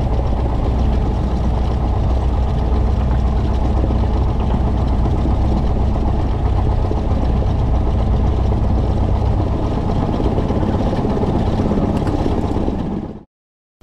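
Cessna 172's piston engine and propeller running steadily at low power while taxiing. The sound fades and cuts off near the end.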